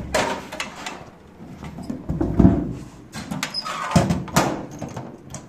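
Small steel locker being opened, shut and locked with its key: metal clanks and lock clicks, the sharpest about four seconds in.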